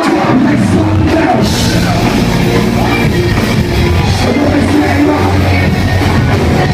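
Live concert music played loud through a PA, with heavy bass, drums and vocals.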